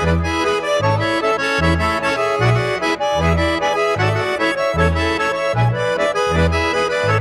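Background music: a traditional-style tune over a bass line that alternates between two low notes about twice a second.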